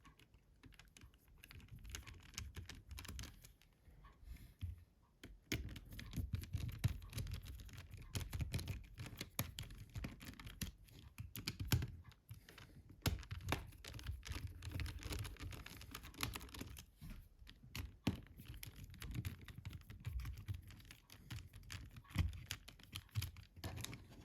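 Small screwdriver working tiny screws out of a Nokia C2-06's plastic housing: many small, irregular clicks and scrapes with handling of the phone.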